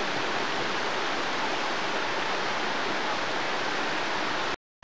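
Steady rushing of a small waterfall pouring over rock into a pool, heard close. The sound cuts out completely for a moment near the end, then comes back.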